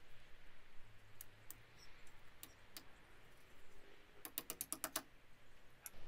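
Light metallic clicks and taps from brake pads and pad pins being fitted into a Brembo four-piston caliper: a few scattered clicks, then a quick run of about eight light taps about four seconds in as a small hammer taps a pad pin home.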